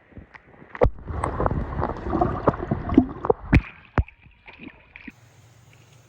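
Water splashing and sloshing for a few seconds, with several sharp knocks in among it, then dying down about four seconds in.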